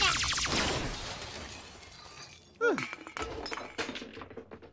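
Cartoon sound effect of a ghost-blaster beam firing: a loud crackling blast that fades away over about two seconds. About halfway through comes a short falling sound, then scattered sharp clinks that die out.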